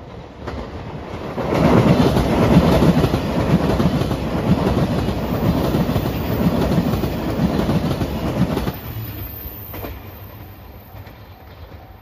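JR Shikoku 2700 series diesel limited-express train passing close by: engine running and wheels clattering over the rail joints, growing louder as it approaches and falling away sharply about nine seconds in. A level-crossing warning bell dings faintly near the end.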